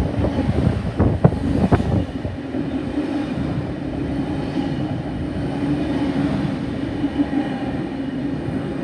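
Sydney C set double-deck electric train running past along the platform. A few sharp wheel clicks come in the first two seconds, then a steady running hum with a held tone.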